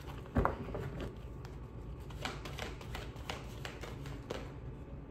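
A tarot deck being shuffled overhand by hand: an irregular run of soft card clicks and slaps, about two or three a second, the sharpest one about half a second in.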